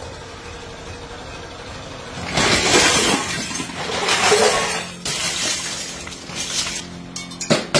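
Scrap aluminium pieces clattering and crashing as they are tipped out of a sack onto a pile: two long pours, about two and a half and four seconds in, then shorter rattles and a few sharp clinks near the end.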